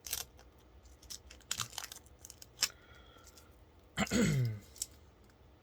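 Protective plastic film being peeled off a PC case panel, with scattered crackles and tearing sounds. About four seconds in, a short vocal sound with a falling pitch.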